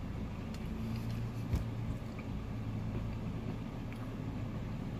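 A steady low hum, with one brief soft knock about a second and a half in.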